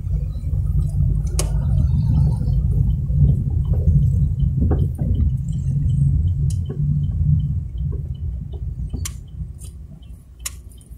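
Car interior rumble from the engine and tyres while driving, easing off as the car slows. From about four seconds in, the turn signal ticks about three times a second as the car turns at a junction, with a few sharp knocks.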